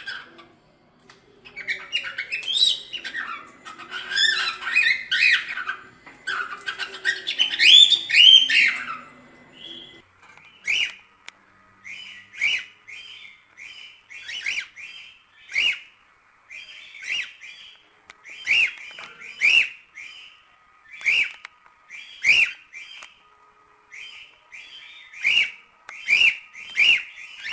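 Cockatiel singing: a dense, chattering warble for the first ten seconds or so, then short separate chirps at about one a second.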